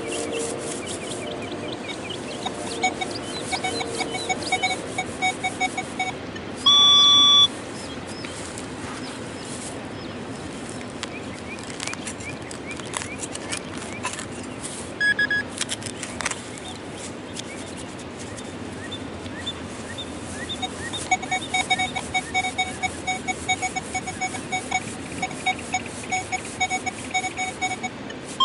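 Metal detector and pinpointer tones sounding over a target in the ground: runs of fast, evenly pulsed electronic chirps, a short beep about halfway through, and loud half-second beeps about seven seconds in and again at the very end. Between them come the scraping and scuffing of digging in soil.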